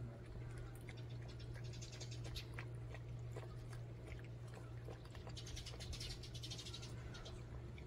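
Two puppies eating from a steel bowl: wet chewing and lapping, with small irregular clicks, over a steady low hum.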